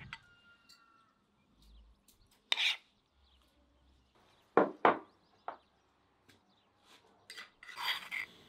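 A spoon working thick cream and mustard in bowls: scattered soft plops and taps, with two sharp knocks in quick succession about halfway through and a short run of scraping and tapping near the end.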